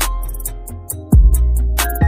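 Background music with a beat: sustained melodic notes over ticking hi-hats and deep bass hits. The bass thins out briefly, then a heavy bass kick comes back a little after a second in.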